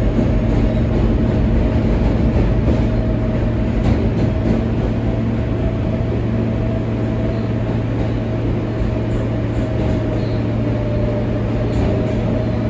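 R143 subway train running steadily along the track: a constant rumble with a steady hum and a thin, even whine held throughout.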